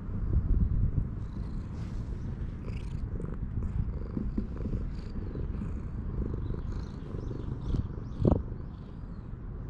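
Domestic cat purring steadily right against the microphone, a continuous low rumble. Near the end a single short bump as the cat's head knocks against the camera.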